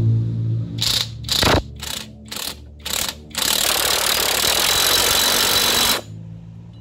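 Cordless impact driver working a screw in the metal housing of a rice-hull blower. It gives five short trigger bursts about half a second apart, then one continuous run of hammering for about two and a half seconds that stops suddenly. A low steady hum sounds under the start and comes back at the end.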